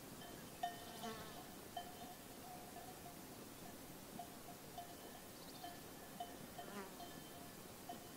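Sheep bells on a grazing flock tinkling faintly at uneven intervals, the same ringing note about once or twice a second. A fly buzzes past briefly, about a second in and again near the seven-second mark.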